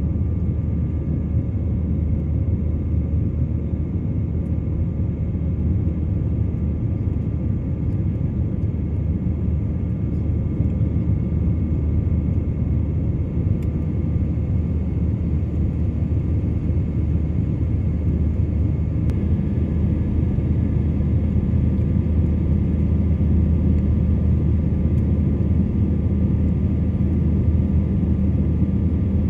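Jet airliner engines running: a steady low rumble with faint, steady high whining tones above it. A deeper hum joins about two-thirds of the way through.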